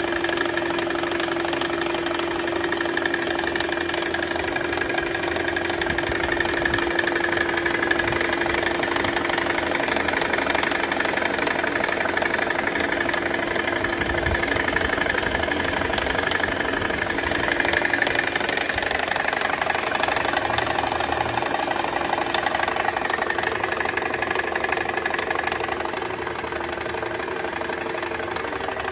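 Mercedes-Benz C320's V6 engine idling with a strange noise from a failing AC compressor. A steady tone sits over the engine's running sound and fades away near the end.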